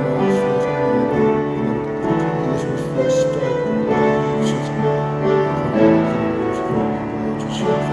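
Slow piano music in the middle of a church service, playing held chords that change about every second.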